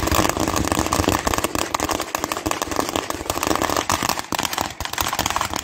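A long string of firecrackers laid on the ground going off in a rapid, continuous crackle of bangs.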